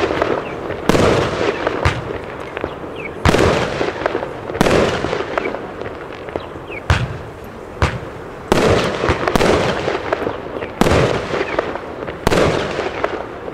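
Argento Capri firework battery firing a sequence of shots: sharp reports about every one to two seconds, with a continuous crackling hiss of bursting stars between them.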